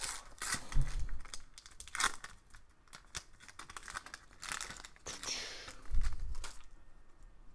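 Foil trading-card pack wrapper crinkling in the hands and being torn open, in scattered crackly bursts, with a couple of dull knocks.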